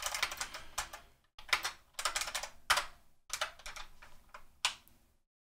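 Typing on a computer keyboard: a quick run of keystrokes, then several single key presses spaced about half a second apart.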